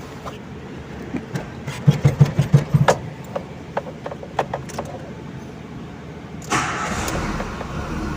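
Volkswagen car engine cranking over with a quick run of low pulses and starting, then running, with a louder steady rush coming in near the end. Its accessory belt drive has freshly replaced tensioner and idler bearings.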